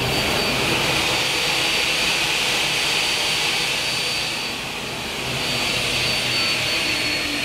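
Aluminium profile cutting saw running: a steady loud hiss with a thin high whine that sinks slightly in pitch near the end.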